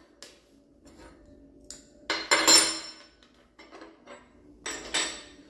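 Small metal motorcycle parts, bushes and brackets, clinking as they are handled and set down on a hard surface. Two louder metallic clinks ring briefly, about two seconds in and near the end, with a few light clicks between.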